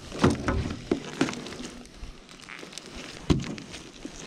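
A wet fishing net handled by gloved hands over a plastic tub: irregular rustles, knocks and thumps, the loudest a little over three seconds in.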